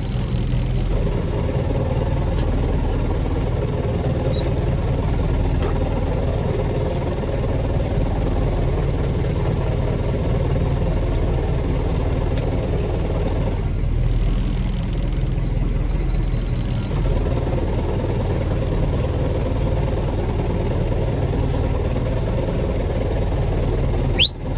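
An engine running steadily with a low hum, and a brief drop in sound with a short rising chirp near the end.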